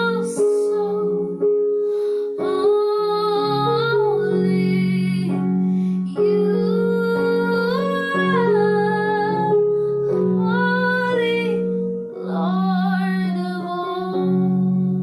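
Worship music: a woman singing slow, held phrases over sustained keyboard chords.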